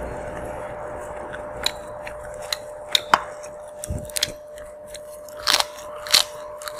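Eating sounds: chewing, with a scatter of sharp clicks and crunches as fingers pick lettuce and rice off a metal tray and a bite is taken, over a faint steady hum.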